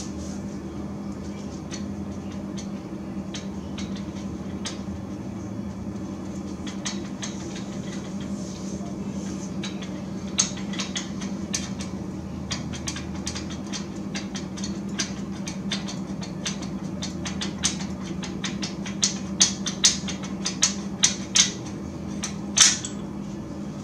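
Steady low hum, tagged as a fan, under scattered sharp metallic clicks and taps from tools and metal parts being handled at the truck's wheel hub. The clicks come faster in the second half, and the loudest ones fall near the end.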